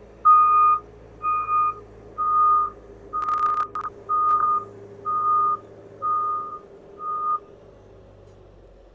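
A vehicle's reversing alarm beeping about once a second over a steady running engine, stopping about three quarters of the way through; a brief clatter sounds midway.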